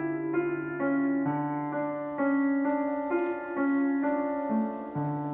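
Soft background piano music: sustained notes in a slow, gentle melody over a held bass note.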